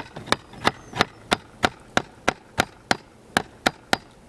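Shingling hatchet tapping a new cedar shake up into place on a roof: about a dozen sharp, even knocks on the wood at roughly three a second, stopping shortly before the end. The taps drive the shake home while its half-driven nails pull tight.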